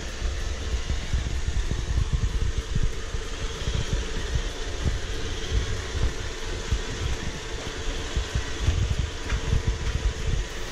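iRobot Roomba 675 robot vacuum running as it drives across a tile floor: a steady motor whir and hiss with a faint hum, over an uneven low rumble.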